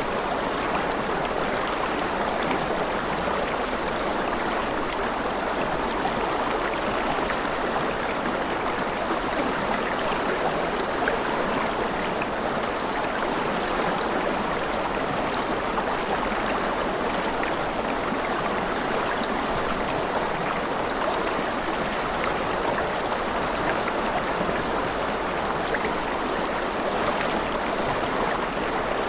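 A rushing river running steadily, an even wash of flowing water with no breaks.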